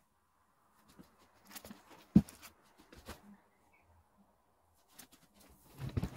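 Handling noise: scattered light clicks and taps, with one sharp thump about two seconds in and a cluster of knocks near the end.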